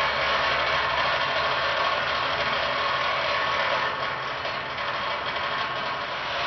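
A machine running steadily, with a low hum under an even mechanical noise.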